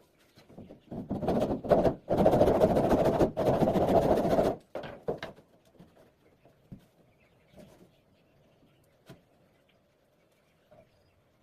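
A tool working wood in two noisy stretches, the first about a second long and the second about two and a half seconds, followed by a few light knocks.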